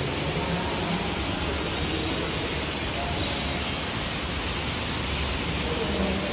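Steady rushing hiss of water spilling from indoor fountain bowls into a pool, echoing in a large hall, with faint voices in the background.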